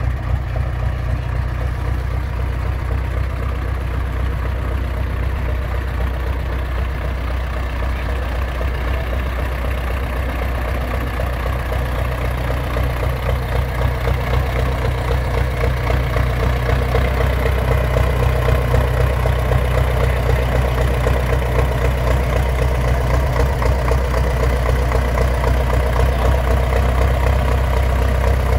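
Belarus 892 Turbo tractor's turbocharged diesel engine running steadily with a deep rumble, growing somewhat louder from about halfway through.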